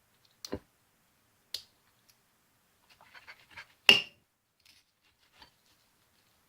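Eating sounds: a few sharp clicks and knocks, with a soft crackly patch just before the loudest knock about four seconds in, which rings briefly.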